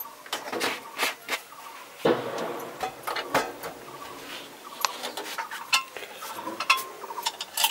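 Metal kitchen utensils and containers being handled: a string of separate clinks and knocks, some ringing briefly.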